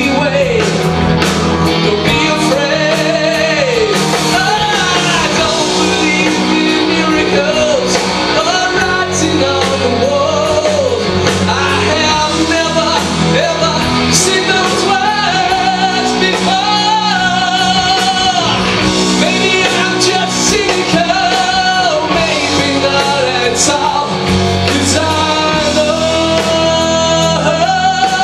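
Rock band playing a song with singing over it; the wavering lead melody settles on one long held note near the end.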